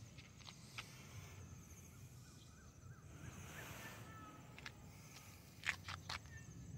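Quiet outdoor ambience: a low steady rumble with faint high chirps around the middle, and a few short clicks, three close together near the end.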